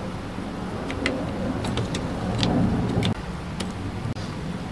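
Short, sharp plastic clicks and taps as batteries are pushed into the battery compartment of a Wixey digital planer readout and the unit is handled shut, about six clicks spread through. Behind them runs a steady low hum that swells around the middle and drops a little after three seconds.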